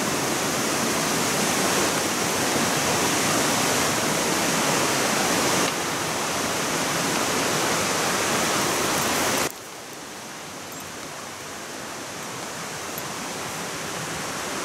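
A fast-flowing mountain creek, a steady loud rush of water. About two-thirds of the way through it suddenly drops much quieter, then slowly builds again.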